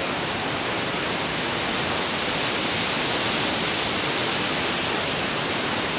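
Dray Nur waterfall rushing: a steady, unbroken wash of falling water.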